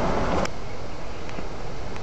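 Steady rushing noise of water flowing through a narrow stony channel, louder at first and dropping suddenly with a click about half a second in.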